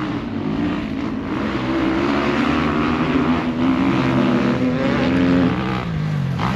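Enduro dirt bike engine revving as it climbs a gravel track toward the listener. Its note rises and falls with the throttle, dips briefly near the end, then picks up again, and it grows louder as the bike approaches.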